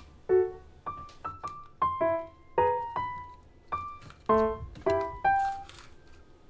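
Background piano music: a light melody of single notes and small chords, struck two or three times a second and each left to ring away.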